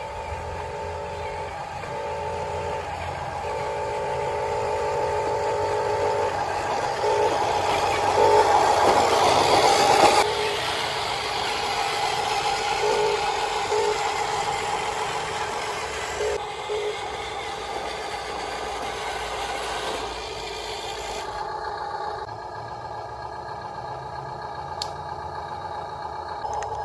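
Whine of a radio-controlled toy excavator's electric motors and gearboxes, starting and stopping in short runs as the machine works. About 8 to 10 seconds in there is a louder stretch of noisy scraping and clatter, which then settles back to a steadier motor hum.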